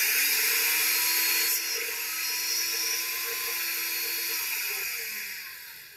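Ninja countertop blender motor running at full speed, blending a thick blueberry smoothie in its tall cup, with a high whine. Near the end the motor winds down, its pitch falling as it coasts to a stop.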